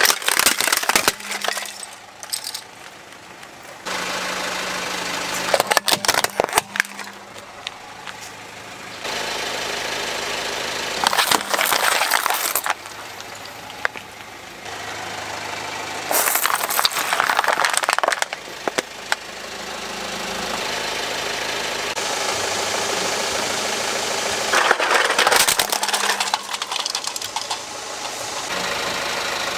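A car creeping over and crushing plastic toys and bottles filled with water beads: about five separate bouts of cracking and crunching plastic, with a steady engine running between them.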